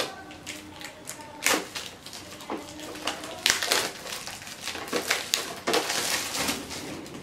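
Clear plastic wrapping crinkling and crackling as it is cut and peeled off a stackable plastic storage box, with scattered sharp clicks and knocks of the hard plastic. The crinkling grows denser about halfway through.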